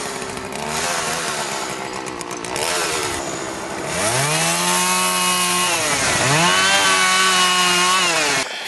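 Two-stroke gas chainsaw carving into a log: running unevenly and lower for the first few seconds, then revved to full throttle about four seconds in, dropping off briefly around six seconds and revving up again as it cuts, spraying chips. The sound stops abruptly just before the end.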